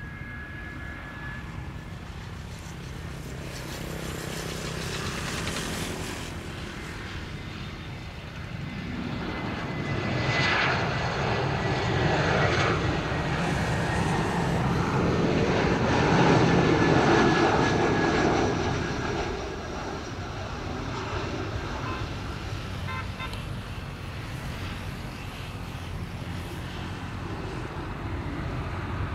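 Airbus A321 jet airliner on landing approach, its twin jet engines whining and then swelling into a loud rushing rumble as it passes close by. The sound then fades as the airliner descends to the runway.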